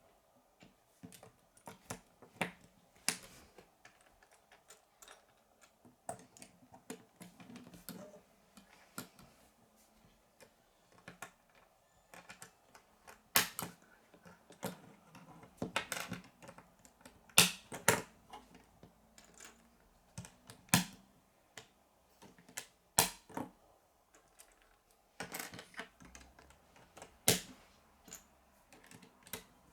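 K'nex plastic rods and connectors being handled and snapped together: irregular sharp clicks, a few much louder than the rest, with softer plastic clatter between them.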